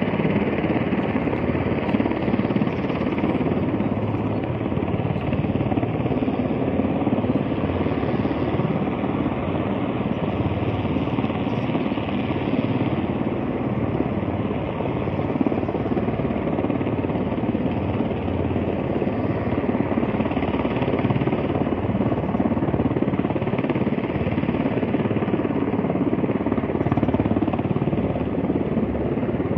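Helicopter hovering, its rotor a steady, rapid chop that holds an even level throughout.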